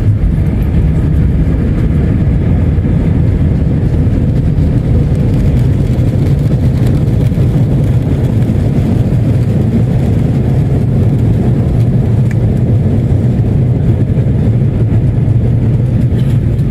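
Steady, loud roar of a jet airliner's engines and airflow, heard from inside the passenger cabin.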